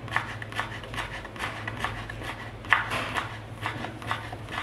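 Kitchen knife slicing stacked thin carrot sheets into fine julienne strips on a wooden cutting board: quick, even strokes, about four or five a second, with the blade tapping the board each time. One stroke a little under three seconds in is louder than the rest.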